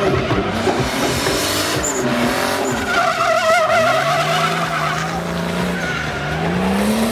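Turbocharged 2.8-litre BMW M52B28 straight-six in a BMW E30 drift car revving up and down on and off the throttle while the rear tyres squeal through a drift. The squeal is loudest and wavers in pitch about three to four seconds in, and the engine note rises again near the end.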